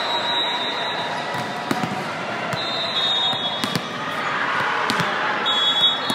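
A ball being hit and bouncing on a gym floor: several sharp, echoing impacts a second or so apart, over a steady murmur of spectators' chatter in a large hall.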